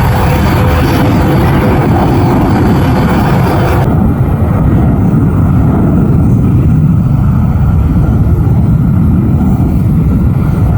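Jet airliner engines running loud, with a steady whine over the noise for the first four seconds. The higher hiss then drops away abruptly, leaving a deep, steady engine noise.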